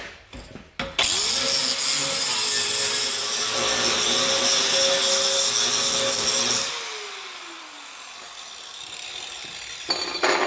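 Power grinder grinding steel edges flat, a loud grinding hiss over a steady whine; about two thirds of the way through the grinding stops and the whine falls in pitch as the disc spins down.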